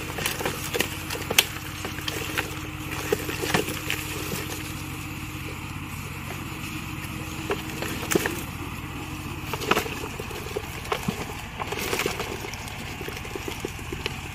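Irregular sharp knocks and scrapes of a plastic bucket being tilted and rummaged through, with live fish and field crabs shifting inside, over a steady low motor hum.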